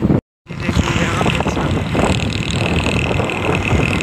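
Motorcycle ride noise: engine running and wind rushing over the microphone while moving. The sound drops out completely for a moment just after the start, and a steady high-pitched tone joins in about a second in.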